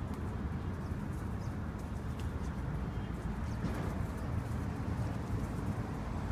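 Pigeons cooing, with faint scattered taps, over a steady low rumble.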